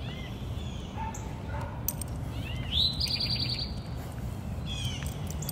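Small songbirds calling: repeated short arched chirps, and one louder rising call about three seconds in that breaks into a buzzy trill. Steady low background noise runs underneath.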